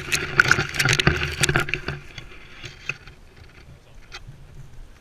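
Footsteps rustling and crackling through long dry grass close to the microphone, busiest in the first two seconds and then sparse, over a low rumble.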